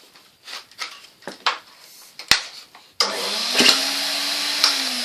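A few light handling clicks, then about three seconds in the Hoover Constellation vacuum cleaner's motor switches on abruptly and runs with a loud rush of air and a hum that sags in pitch near the end; its hose is blocked.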